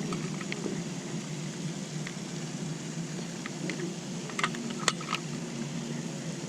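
Light clicks and rustling from handling a freshly caught fish and tackle over a steady background hiss. Most of the clicks come in a short cluster just past the middle.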